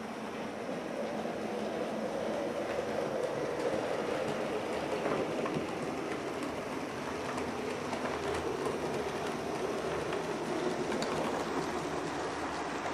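00-scale model train running past on the track, a steady whirring from the locomotive's motor with light clicking of the wheels over the rail joints, growing louder over the first few seconds as it comes close.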